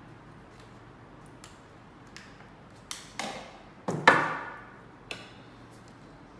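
Badminton racket being tapped and knocked: a few faint ticks, then a cluster of sharper knocks about three to four seconds in, the loudest ringing out for nearly a second, and one last smaller knock.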